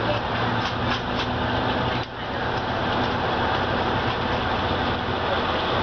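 A diesel train's steady running noise heard from a carriage window: a low engine hum under an even rumble, with a few sharp clicks in the first couple of seconds.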